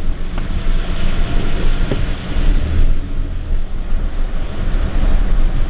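Pickup truck driving, heard from inside the cab: a steady low engine and road rumble, with a couple of short knocks as the truck bounces along the snowbank edge.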